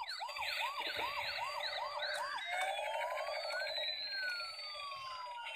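Electronic siren of a battery-operated toy police car: a quick repeating yelp, about three chirps a second, which a couple of seconds in changes to slower tones sliding up and down.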